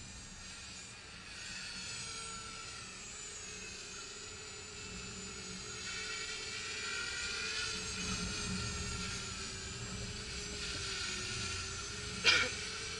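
ONAGOfly 1 Plus quadcopter drone's propellers whining in flight: a high, many-toned buzz that drifts slightly in pitch and grows louder, over a low rumble. A single sharp knock near the end.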